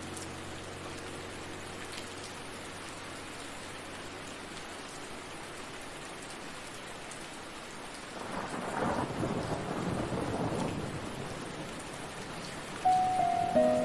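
Steady rain falling, with a roll of thunder swelling up about eight seconds in and lasting around three seconds. A few notes of soft music come back in near the end.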